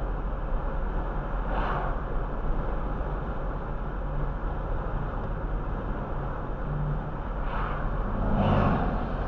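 Steady road and engine noise heard inside a car cruising at about 32 mph, with oncoming vehicles swishing past: one about two seconds in and two close together near the end, the last of them the loudest.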